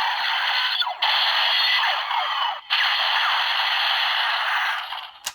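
Electronic sound effect from the DX Break Gunner toy's small built-in speaker, triggered by an inserted shift car. It is a tinny, hissing sound with no bass, in three stretches broken by brief gaps, that dies away near the end.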